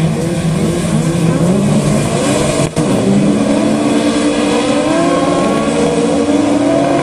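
A pack of VW Beetle-class autocross cars with air-cooled flat-four engines running together, revving and rising in pitch as they accelerate away from the start. There is a brief break in the sound about two and a half seconds in.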